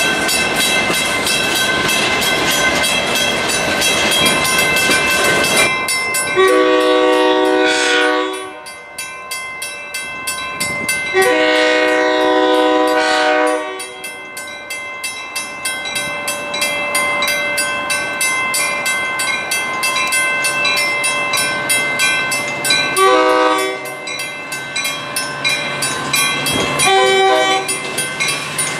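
Freight cars rolling past with steady wheel-on-rail rumble and clatter, then a Metra commuter train's multi-note air horn sounding four blasts as it approaches: two long blasts and then two short ones.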